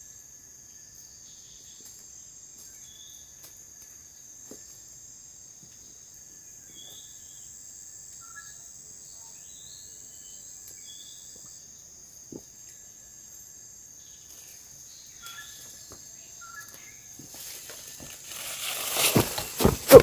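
A steady high-pitched insect drone from the forest, with short bird chirps every few seconds. Near the end come louder splashing and thuds as someone in rubber boots steps off a log into a shallow stream.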